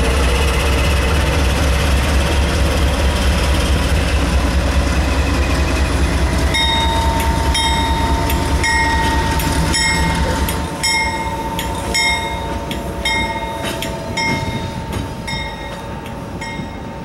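Norfolk Southern GE Dash 9-40CW diesel locomotives rumbling past a crossing, the low engine rumble falling away about eleven seconds in as they pull off. From about six seconds in, a bell strikes steadily about twice a second over a steady high tone.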